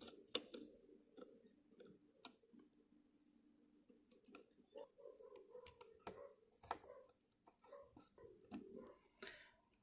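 Faint, scattered clicks and light taps of small plastic parts being handled and fitted together, sparse at first and more frequent from about halfway through.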